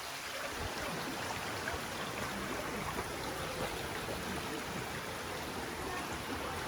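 Steady rush of a creek in flood, swollen by heavy rains, flowing past the site.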